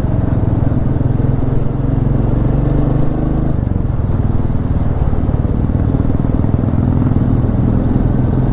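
Royal Enfield Meteor 350's single-cylinder engine running steadily under way, its note changing about three and a half seconds in.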